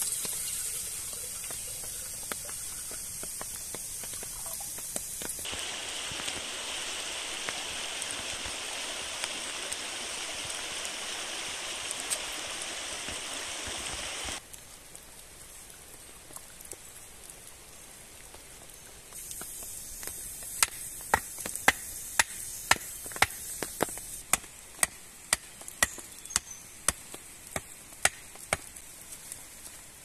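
Water poured from a canteen into a metal kettle, a steady splashing pour. Later a run of sharp knocks comes, about two a second.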